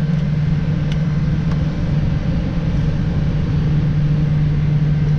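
Steady, loud low drone of heavy machinery, an unchanging hum with a rumble beneath it, with two faint clicks about a second in.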